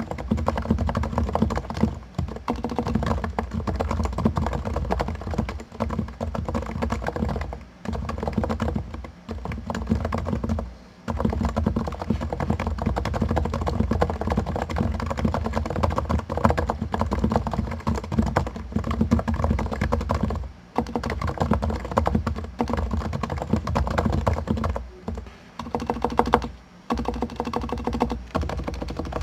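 Continuous fast typing on a Topre Realforce R2 keyboard with 45 g silent electrostatic capacitive switches lubricated with Tribosys 3204: a dense run of soft, rounded key strikes with a few brief pauses.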